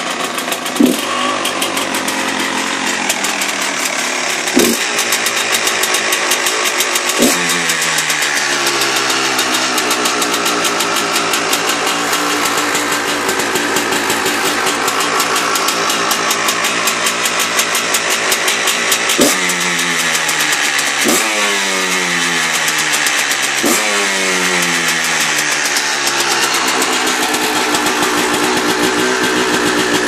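Stock 2009 Husqvarna SM 125 two-stroke single-cylinder supermotard engine running at a standstill, blipped six times. Each blip rises sharply and then falls back over a few seconds, with steady running between the blips.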